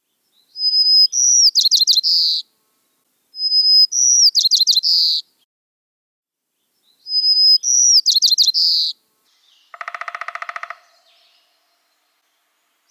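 A songbird singing the same short, high song three times: each begins with a clear held whistle and breaks into a quick run of rapid notes. About ten seconds in, a lower, rapidly pulsing buzzy call sounds for about a second.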